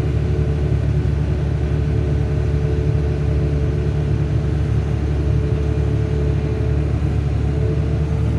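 Volvo EC480DL excavator's diesel engine running steadily, a deep continuous rumble with a faint steady whine above it.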